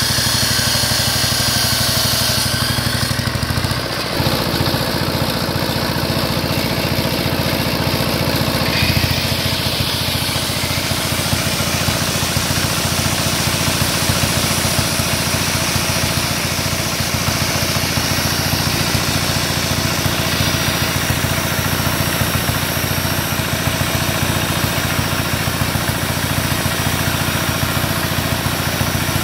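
A small single-cylinder engine runs steadily under load, belt-driving a dynamo generator. In the first few seconds an abrasive chop saw powered by the generator screeches through metal. Later an angle grinder runs off the same supply and cuts a steel bar, while the engine keeps running.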